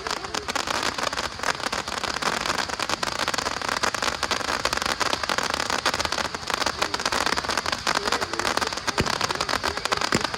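Fireworks crackling densely and without a break: a fast patter of tiny pops like rain, with a few sharper cracks among them.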